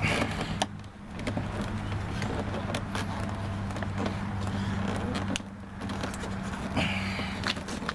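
Scattered light clicks, knocks and rattles of parts inside a Toyota Sienna front door being worked loose by hand, over a steady low hum.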